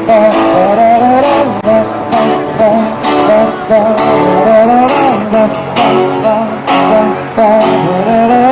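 Music: a strummed acoustic guitar in a steady rhythm, with a wavering melody line over it.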